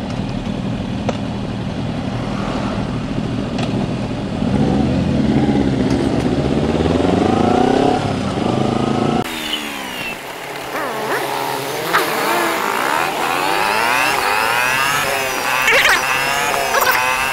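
Motorcycle engines idling at a stop, then revving in rising sweeps as the bikes pull away and accelerate. About nine seconds in, the sound turns abruptly thinner and higher, with quick rising and falling engine sweeps, as the footage is sped up.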